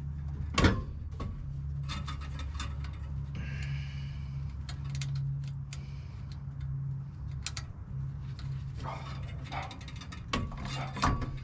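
Scattered metal clicks and clinks of hand tools and exhaust parts being fitted, with a sharp knock about half a second in, over a steady low hum.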